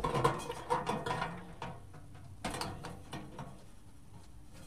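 Hand screwdriver driving a screw through the centre of a thin metal pizza pan: a run of clicks and metallic scrapes in the first second or so, another short burst about two and a half seconds in, then fainter handling.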